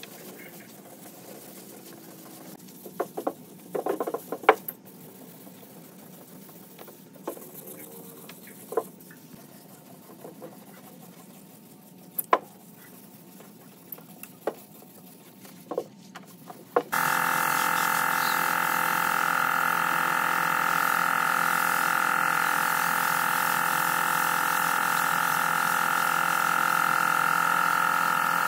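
Wet sanding of a car bonnet with a hand sanding block under a running hose: a low watery hiss with scattered scrapes and knocks of the block. About two-thirds of the way through it gives way abruptly to the loud, steady hiss of a compressed-air spray gun spraying grey paint onto the bonnet.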